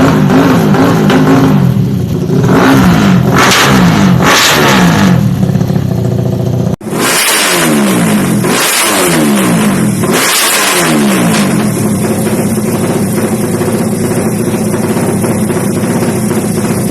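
Suzuki Satria FU motorcycle engine, fuel-injected and tuned to 200cc, running loudly at high revs. After an abrupt break about seven seconds in, it is revved in three quick throttle blips that rise and fall in pitch, then settles to a steady idle.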